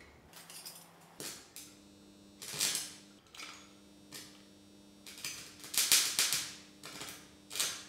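Stick-welding arc from a homemade welder built from stacked computer UPS transformers. The electrode is struck on steel and the arc catches in repeated short crackling bursts, strongest a little before six seconds in. A faint steady hum runs underneath.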